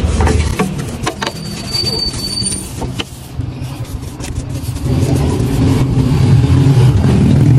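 A motor vehicle's engine running, a low hum that fades in the first half and comes back louder from about five seconds in, over the scratching and clicking of a small brush scrubbing degreaser across engine-bay parts.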